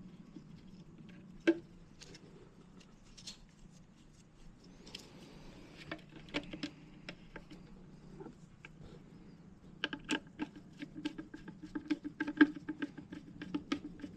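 Small clicks and taps of hand tools and metal boiler parts being fitted and screwed together, with a sharp knock about a second and a half in and a quick run of clicks over the last few seconds, over a low steady hum.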